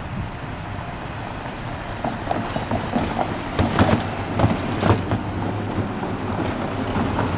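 Cars driving past close by over tram rails, one towing a small box trailer that rattles and clunks across the rails, with several sharp knocks from about two to five seconds in. A passing car's engine hum follows.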